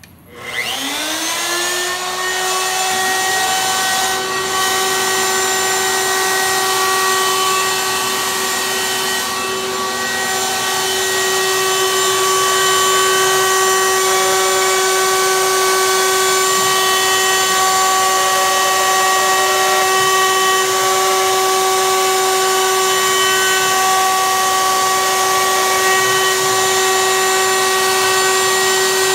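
Wood router on a CNC machine switched on: it spins up within about a second to a steady high whine, then runs on as its bit cuts a tenon into the end of an upright wooden board. It gets a little louder about a third of the way in.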